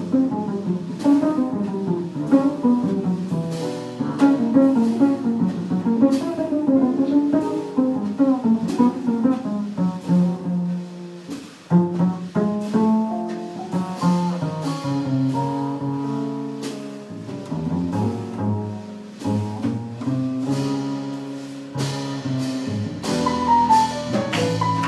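Upright double bass played solo: a continuous walking line of low notes that step up and down, reaching into higher notes near the end.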